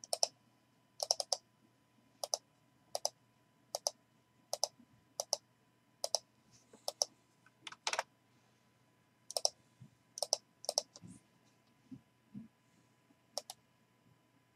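Sharp computer clicks, singly or in quick pairs and threes, about one a second, with a gap of a few seconds near the end; a few soft low thumps come during that gap.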